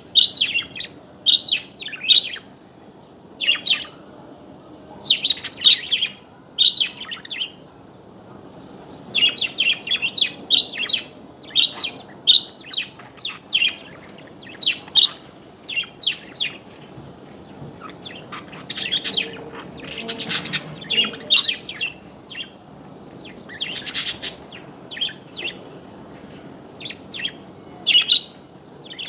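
Small birds chirping and twittering in quick, short, high notes that come in clusters, with a brief lull about eight seconds in.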